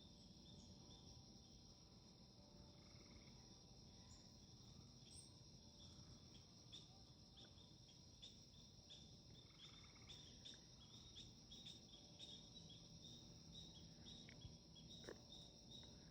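Faint insect chorus: a steady high-pitched drone with short chirps repeating alongside it, more often in the second half.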